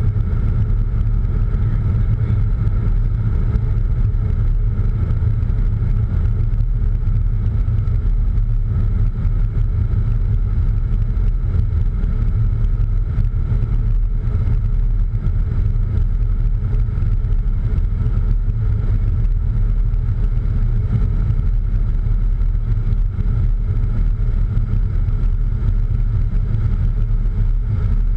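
Steady cockpit noise of a Cessna Citation X business jet in flight at low altitude on approach: a loud, even low rumble of airflow and engines with a faint steady hum above it.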